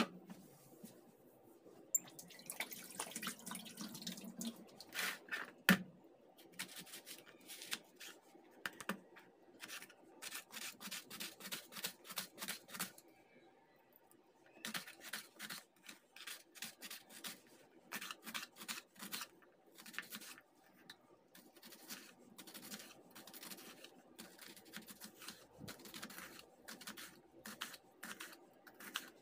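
Kitchen knife slicing a red onion on a plastic cutting board: quick runs of crisp cuts and taps of the blade on the board, with short pauses between them. One louder knock about six seconds in.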